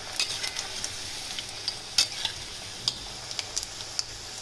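Strips of maida dough deep-frying in hot oil in a stainless-steel kadhai, sizzling steadily, with sharp clicks and scrapes as a spatula stirs them against the pan. The loudest click comes about two seconds in.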